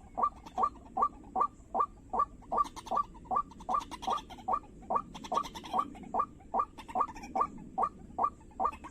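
White-breasted waterhen's "ruak" call repeated monotonously, a short note a little under three times a second in a steady, even rhythm.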